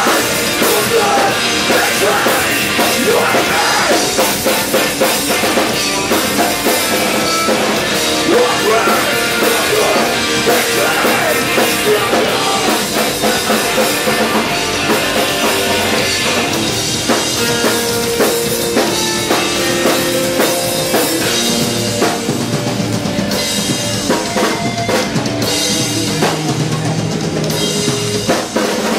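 A live rock band playing loud: electric guitars and bass over a full drum kit, without a break.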